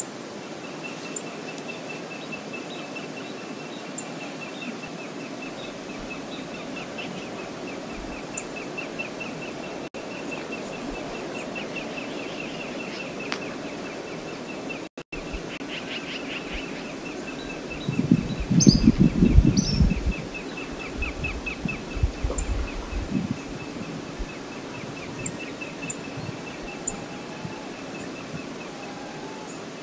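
Outdoor wilderness ambience: a steady background hiss with a high, rapid trill that keeps repeating, typical of a small bird. About 18 seconds in, a low rumble of wind buffeting the microphone is the loudest thing for about two seconds, with smaller gusts after it.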